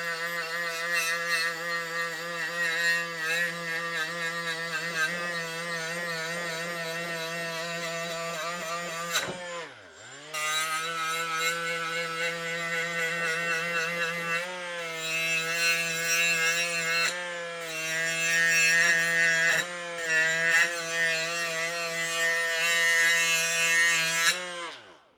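Cordless power tool running with a steady whine while its spinning head grinds rust and paint off a steel scraper blade. It bogs almost to a stop about ten seconds in and spins back up, dips briefly twice more under load, and winds down just before the end.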